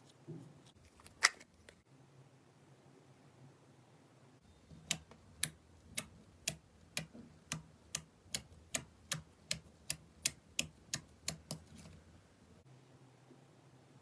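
Slime being pressed, making sharp clicking pops: a few single clicks at first, then a steady run of about two clicks a second for around seven seconds.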